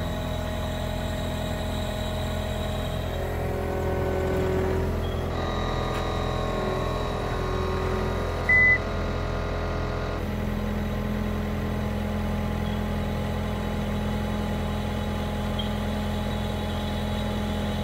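Engine of the lifting machine running steadily with a low hum, a higher whine joining from about four to ten seconds in. A short electronic beep sounds about eight and a half seconds in, and the low engine note grows stronger from about ten seconds in.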